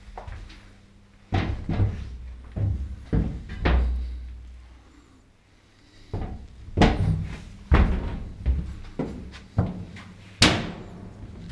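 Footsteps thudding on steel deck plates and stairs, with a sharper, ringing bang near the end, over a faint low machinery hum.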